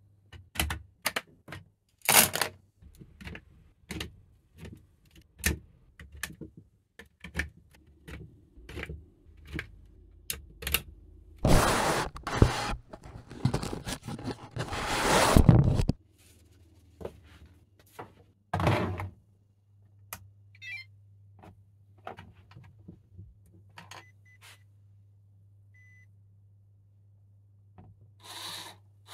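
Plastic LEGO Technic parts being handled and fitted together: a run of sharp clicks and knocks. Midway through comes a loud rustling scrape of about four seconds, followed by a few more knocks.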